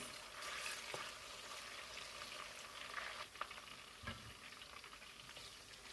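Onion and fresh thyme sizzling and crackling in hot vegetable oil in a pot, with a few clicks and a soft knock as the spoon stirs it.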